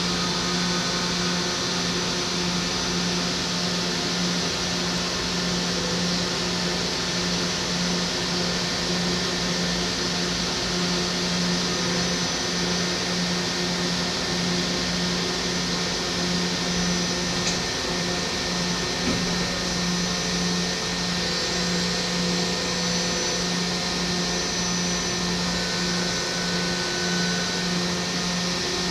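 DMG Mori NTX 1000 mill-turn CNC lathe cutting a workpiece under flood coolant. A steady hiss of coolant spray sits over a constant low spindle hum, heard through the closed machine enclosure.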